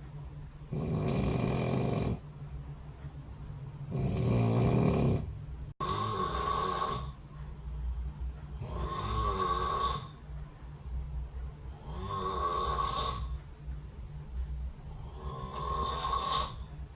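A person snoring: about six loud rattling snores, one every two to three seconds, over a steady low hum, as recorded by the SnoreLab sleep app. There is a brief dropout about six seconds in.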